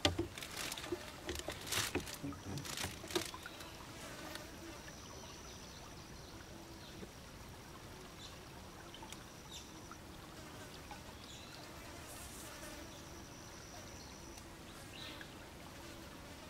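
Insects buzzing faintly and steadily, with a thin high whine that comes and goes. A few sharp knocks and clicks come in the first three seconds.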